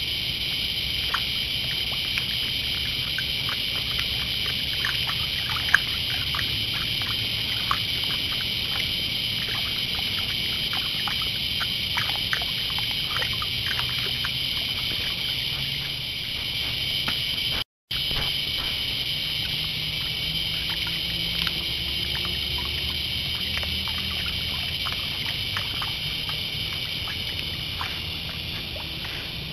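A steady, shrill chorus of night insects, with small scattered splashes and drips as white-tailed deer wade in the shallow creek. The sound cuts out for a moment about two-thirds of the way through.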